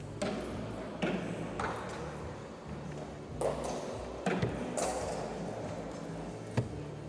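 Steel-tip darts striking bristle dartboards: a string of short sharp knocks, the sharpest near the end, over the steady murmur of a busy hall.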